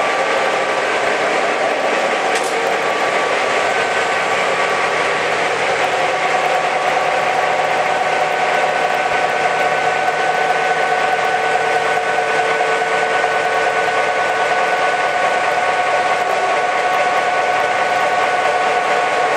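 EMD 567-series V16 two-stroke diesel engine of a MÁV M61 NOHAB locomotive running steadily, heard from inside its engine room, with several steady whining tones over the engine noise. A single short click comes about two and a half seconds in.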